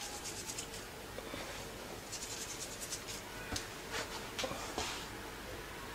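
Salt rubbed between the fingers and sprinkled onto sliced raw vegetables: faint, rapid scratchy rustling in two short spells, followed by a few light clicks.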